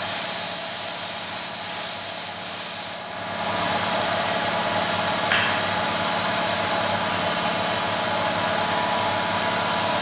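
Compressed-air spray gun hissing as it sprays clear sealer onto a wooden door, cutting off about three seconds in. The air compressor feeding it keeps running steadily underneath throughout.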